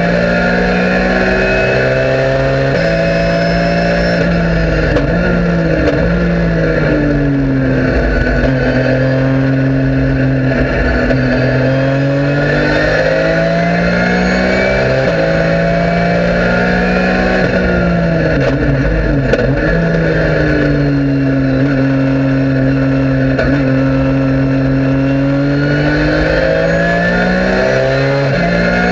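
Porsche 997 GT3 Cup race car's flat-six engine heard from inside the cabin at racing speed. The revs climb and step down with each quick upshift. Twice the pitch falls away under braking with blipped downshifts, holds steady through a long corner, then climbs hard again.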